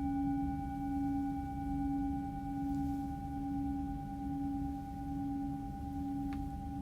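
Singing bowl ringing on after being struck, a few pure overlapping tones that hold with a slow, wavering pulse in loudness: the closing bell of a guided meditation. A faint click sounds near the end.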